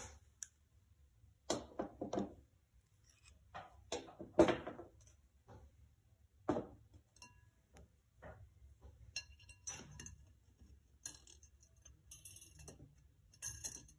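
Handling sounds on a workbench: scissor snips at a paper towel about two seconds in, then separate knocks from a glass vase and tools being set down, the loudest about halfway. Near the end, light clinking and rattling as a thin metal leaf-pattern profile is fitted against the vase's glass rim.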